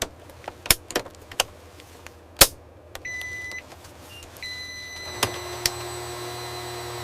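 Several sharp mechanical clicks and a short electronic beep, then a steady electric motor whine with a couple more clicks over it.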